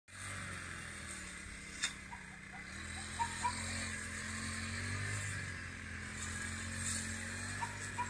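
A small engine running steadily, a low even hum that gets a little stronger about three seconds in, under a faint hiss. There is a single sharp click near two seconds and a few faint chirps a second or so later.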